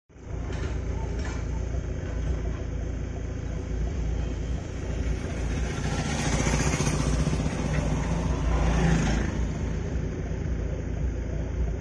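Engine noise by a roadside: a steady low rumble that swells louder as a vehicle passes, from about six to nine seconds in.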